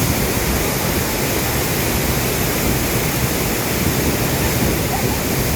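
Mimbalot Falls' waterfall: a steady, loud rush of falling water.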